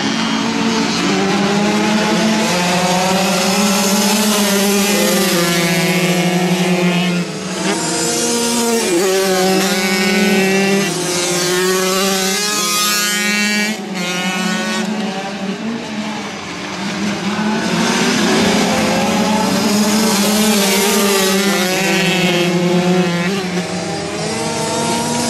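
Several flat-track racing motorcycle engines running hard together, their pitches overlapping and stepping up and down with throttle and gear changes.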